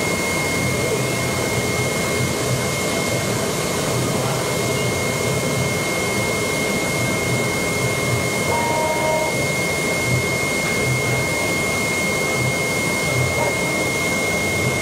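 AOKE DCH-series CNC flatbed cardboard cutter running as its tool head cuts 2 mm E-flute corrugated sheet: a steady rushing machine noise with a constant thin high whine.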